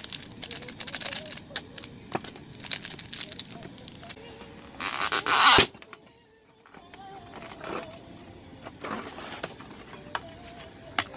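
Rustling, crinkling and scattered clicks of things being handled, with one loud burst of rustling noise about five seconds in that cuts off abruptly.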